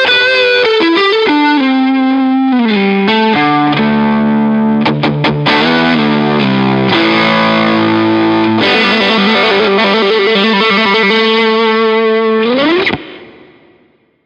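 Fender Custom Shop 1961 Stratocaster electric guitar playing a distorted lead line with string bends and long sustained notes. A long held note near the end bends upward and then cuts off, and the sound dies away to silence.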